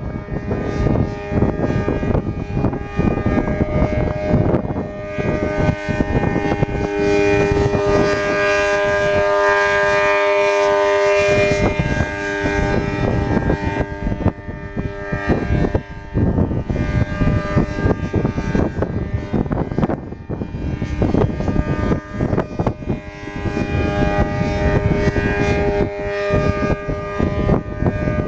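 ACA Allertor 125 electronic outdoor warning siren sounding a steady tone with several pitches stacked together. It swells and fades, loudest about eight to twelve seconds in and again near the end.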